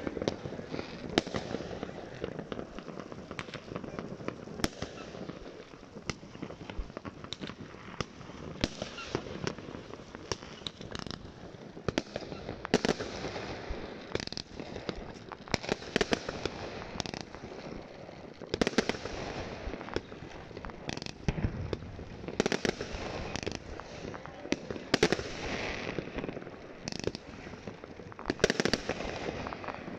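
Fireworks going off: many sharp bangs from aerial shells at irregular intervals, some in rapid clusters.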